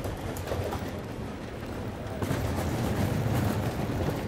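Train running on the rails: a low rumble with scattered knocks and clunks, getting louder about two seconds in.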